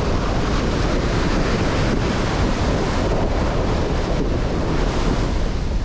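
Ocean surf breaking and washing up a sandy beach, a steady rushing wash, with wind buffeting the microphone and adding a low rumble.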